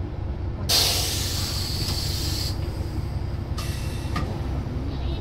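Isumi 200 series diesel railbus heard from inside, its engine a steady low drone, with a sudden loud hiss of escaping air about a second in lasting almost two seconds, and a shorter hiss near the end.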